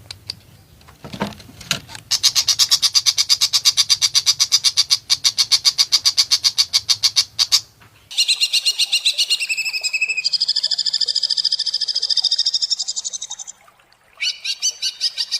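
Cucak hijau (green leafbird) singing harsh, rapid 'shooting' phrases: long runs of sharp notes repeated several times a second, broken by denser trills, with brief pauses between the phrases.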